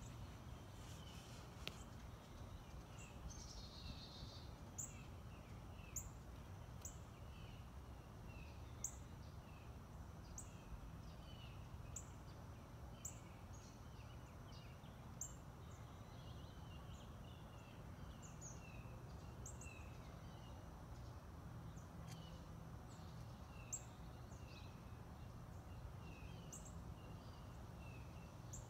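Faint birdsong: many small birds chirping and twittering throughout, with a sharp high call repeating about once a second, over a low steady hum.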